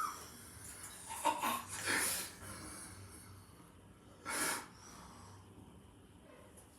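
A person breathing and sniffing close to the microphone: three or four short, hissy breaths, the clearest about a second in, two seconds in and about four seconds in, over a quiet hum.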